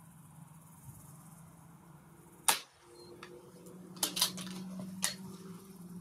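Reximex Throne Gen-2 .177 PCP air rifle firing a single shot, a sharp crack about two and a half seconds in, followed a second and a half later by a few quieter sharp clicks.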